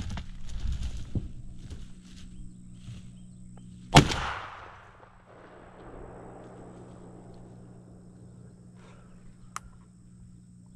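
A single shotgun shot about four seconds in, loud and sharp, with an echo that dies away over a second or more. Before it come rustling and knocks of handling, and a low steady hum runs underneath.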